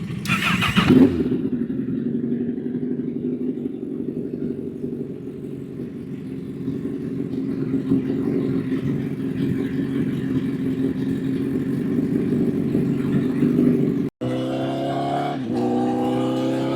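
Honda CBR1000 inline-four engine running steadily, with a short rush of noise near the start and the level building over the next several seconds. Near the end the engine revs climb, drop at a gear change, and climb again as the bike accelerates.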